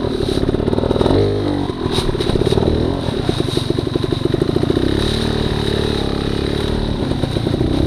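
A 280cc two-stroke trials motorcycle engine running under a rider, its revs rising and falling.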